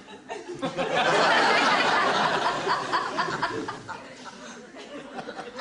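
Studio audience laughing, swelling about a second in and dying away a few seconds later.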